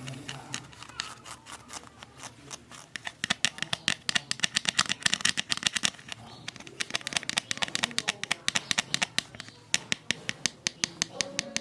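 Handling noise from unboxing packaging: a rapid run of crisp clicks and scratches, several a second, starting about three seconds in.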